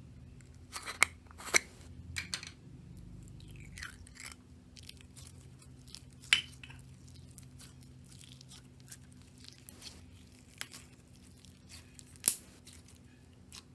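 Slime being squeezed and pressed by hand: scattered sticky clicks and crackles, with a few sharper snaps about a second in and near the end.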